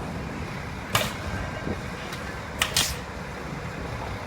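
Nail guns firing on roof trusses: one sharp crack about a second in, then two in quick succession near the end, over a steady low rumble.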